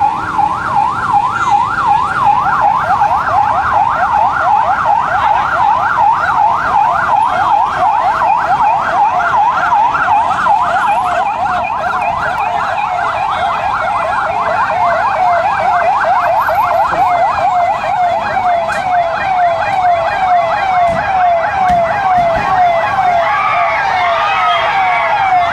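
Police escort vehicle's siren on a fast yelp, its pitch sweeping up and down several times a second without a break.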